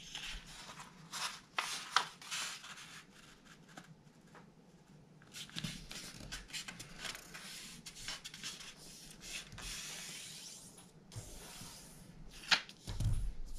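A sheet of construction paper being folded on a table: it rustles and slides, and a hand rubs along the fold to crease it in irregular scratchy strokes. Near the end there is a sharp crack followed by a low thump.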